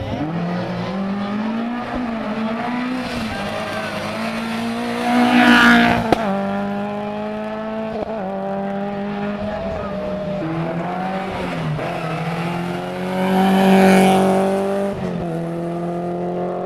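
Rally car engine revving hard and dropping back again and again through the gears along the stage, swelling loudest twice, about a third of the way in and again near the end. A single sharp crack comes just after the first loud swell.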